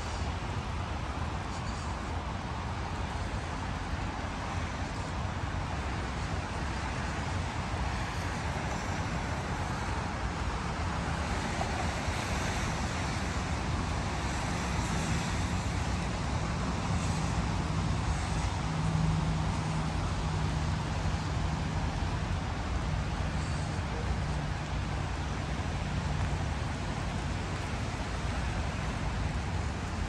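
Steady distant city traffic rumble, with a low engine hum that swells about halfway through and fades near the end.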